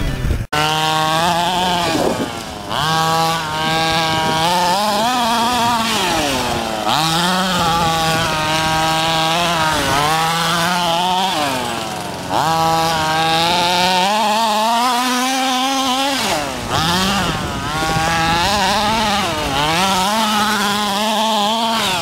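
HPI Baja 5B SS's small two-stroke petrol engine running under hard throttle, its pitch repeatedly rising and falling as it revs up and backs off. There is a brief cutout about half a second in, and a longer off-throttle dip about two-thirds of the way through.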